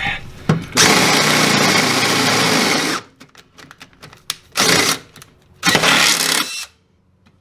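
Cordless power drill boring a 9/16 hole through car-body sheet metal for a threaded insert. It runs in one long burst of about two seconds, then two short bursts, and goes quiet near the end.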